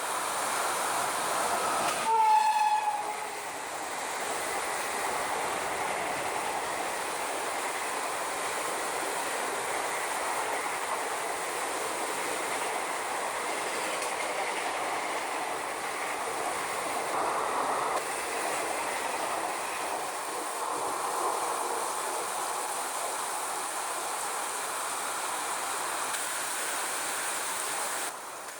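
A train horn sounds briefly about two seconds in, dipping slightly in pitch, followed by the steady noise of a train running past on the track. The noise stops abruptly near the end.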